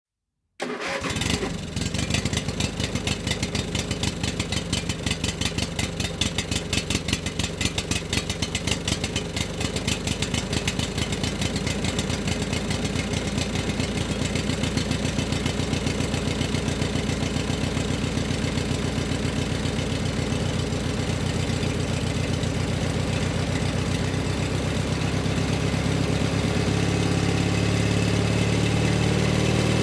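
A motor engine starting suddenly and running, its pulsing beat speeding up steadily until it runs smooth and even near the end.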